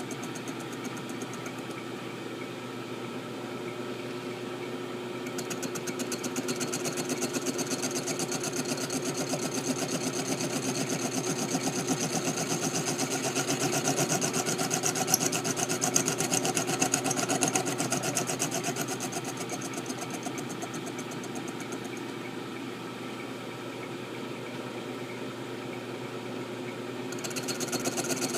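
Machine tool running steadily while cutting slots into a steel M1911 pistol slide. A higher cutting hiss joins about five seconds in and is loudest in the middle, then eases off near the end.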